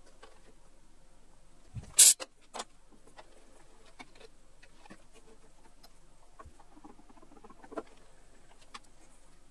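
Scattered light metallic clicks and clinks of hand-tapping tools, a tap and T-handle tap wrench, being handled at a drill-press vise. One sharp clack about two seconds in is the loudest sound.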